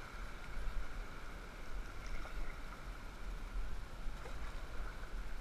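River water rushing and lapping around an inflatable stand-up paddleboard as it is paddled, with a few faint splashes of the paddle blade dipping in. A steady low rumble sits under it.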